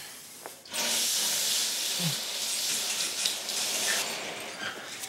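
Hospital privacy curtain being drawn along its ceiling rail: a long swish of cloth and sliding runners that starts about a second in and lasts about three and a half seconds.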